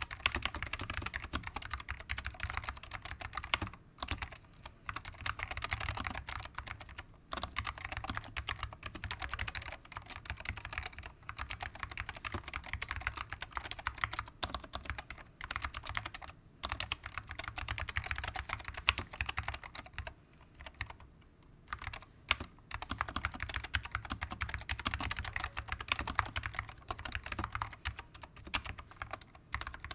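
Continuous fast typing on a 60% custom mechanical keyboard with SKCM Salmon Alps switches, dry-lubed with WD-40, in a plastic GH60 case. The keystrokes click in quick runs with a few short breaks and a longer lull about two-thirds of the way in.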